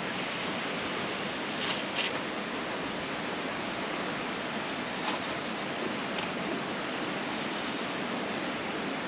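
Steady rushing hiss of river water flowing out of a dam, released at about 3,000 cubic feet per second, with a few brief faint ticks about two and five seconds in.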